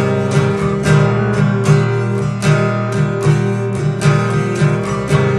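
Acoustic guitar strummed in a steady rhythm, a couple of strokes a second, with no singing.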